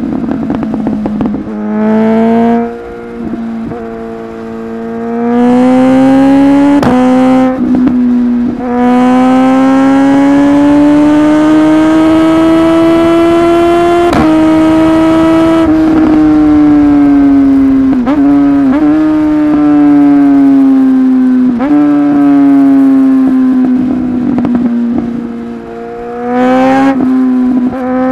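Suzuki GSX-S1000 inline-four motorcycle engine running at high revs, its pitch slowly climbing and falling with the throttle. Several short sharp cracks break in along the way, the quickshifter bangs of full-throttle gear changes.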